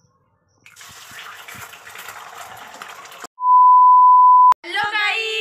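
A steady hiss for about two and a half seconds, then a loud, steady, single-pitch test-tone beep lasting about a second, the bars-and-tone beep that goes with a TV colour-bar test card. The beep cuts off suddenly.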